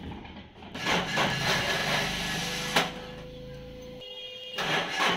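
A vehicle's starter motor cranking the engine in an even, repeating churn that starts near the end, with a sharp click about halfway through before it. The engine has sat unused for days and is slow to catch.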